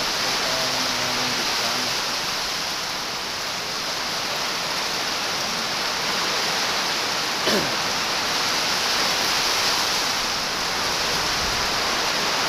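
Heavy tropical downpour in strong wind, a steady dense hiss of rain. A little past halfway comes one short sound that falls in pitch.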